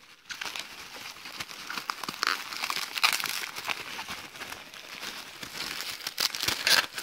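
Plastic bubble wrap crinkling and rustling with many small crackles as it is handled and pulled open from around a package.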